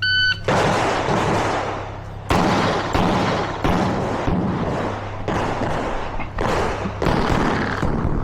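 A shot timer's short electronic start beep, then a string of handgun shots fired at uneven half-second to one-second intervals, each followed by a long fading tail.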